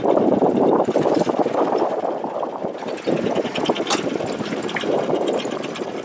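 Small wooden boat's engine running under way, with water rushing along the hull.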